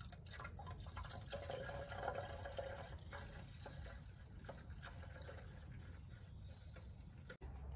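Water pouring in a thin, faint stream from a plastic gallon jug into a car's Moroso coolant overflow tank, filling the cooling system before it is bled.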